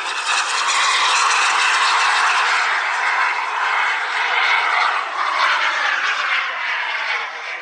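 Radio-controlled model jet with a PST gas-turbine engine flying past: a steady rushing jet noise with faint gliding tones, swelling about a second in and easing off near the end.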